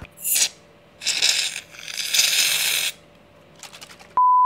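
Aerosol can of shaving foam hissing as foam is sprayed out in three spurts, the last the longest. Near the end a short, loud, steady beep.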